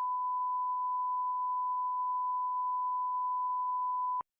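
A steady electronic test tone, one pure unchanging beep, that cuts off suddenly with a faint click near the end.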